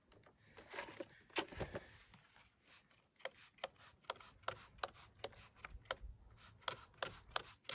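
Trigger spray bottle squirted repeatedly onto a freshly patched tire sidewall, short quick spritzes about two or three a second from about three seconds in, to check the repair for air leaks. A few softer handling sounds come before the spraying.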